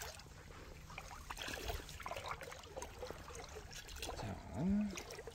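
Shallow seawater on a tidal mudflat sloshing and trickling around wading boots, with small scattered splashes and clicks as a long-handled tool is dipped into the water. A short low hum that rises and falls comes about a second before the end and is the loudest sound.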